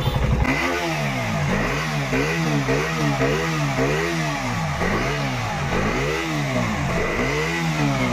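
KTM Duke 250 single-cylinder engine idling, then from about half a second in revved up and down again and again in quick throttle blips, roughly two a second.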